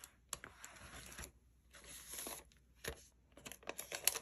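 Soft rustling and crinkling of a clear plastic zip pouch and paper stickers being handled, with a few light taps, in short spells with quiet gaps between.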